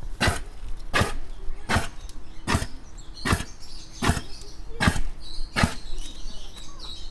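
Reindeer grunting in a steady rhythm, about ten short grunts, one every three-quarters of a second.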